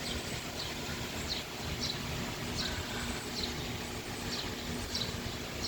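A bird chirping over and over, about two short, high, falling chirps a second, over a steady outdoor hiss.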